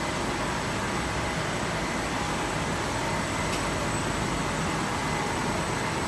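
WJRB-320 eight-colour flexo label printing press running: a steady, even mechanical noise with a thin high whine over it.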